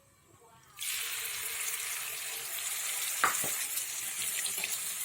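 Ground chili sambal paste frying in a little hot oil in a pan. A sizzle starts suddenly less than a second in and runs steadily, with a single clink about three seconds in.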